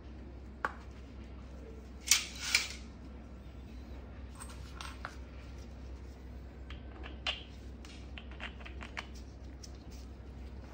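Plastic stand parts and a metal rail and rod being handled and fitted together: scattered light clicks and knocks, with a louder clatter about two seconds in.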